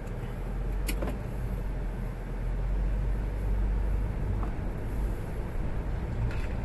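Car cabin noise while driving slowly: a steady low engine and road rumble, with a single sharp click about a second in.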